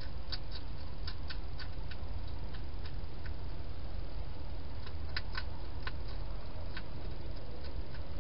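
Hedgehog chewing at a food bowl: irregular sharp clicks and smacks, a cluster in the first two seconds and another about five seconds in, over a steady low hum.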